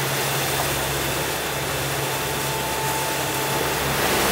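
Inboard diesel engine of a Neel 43 trimaran running steadily at about 2,000 RPM while motoring at cruising speed, a low even hum under a steady hiss.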